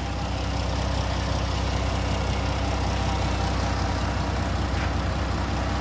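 2012 Chrysler Town & Country's 3.8 L V6 idling steadily, running on a freshly fitted remanufactured alternator.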